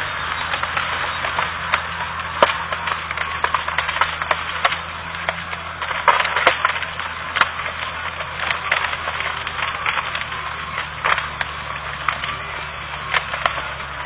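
A machine's engine runs steadily under loud, irregular cracking and snapping, like wood splintering.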